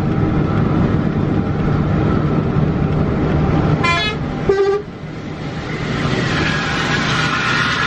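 A bus heard from inside the cab, running along the highway with a steady engine and road rumble. About four seconds in come two short horn toots, half a second apart. Near the end the road noise rises as another bus comes alongside.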